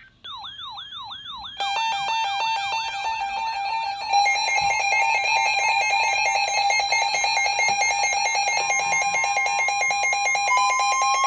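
Layered electronic alarm and siren tones. First a falling whooping chirp repeats about four times a second, then fast pulsed beeping takes over and gets louder about four seconds in. A rising siren wail starts near the end.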